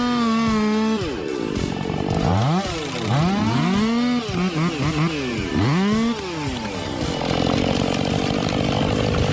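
Chainsaw running at high revs, then revved up and down several times between about two and six seconds in. From about seven seconds in, a steadier engine sound takes over.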